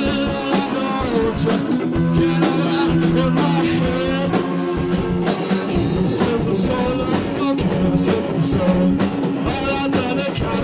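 Blues-rock band playing with electric guitar to the fore and the sharp strokes of drums or cymbals, the instruments drastically out of tune.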